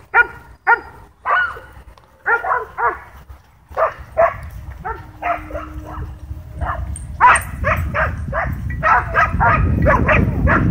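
Several dogs barking excitedly at a drone flying low overhead. The barks come in quick, overlapping volleys that grow faster and louder from about seven seconds in. A low rumbling noise builds underneath near the end.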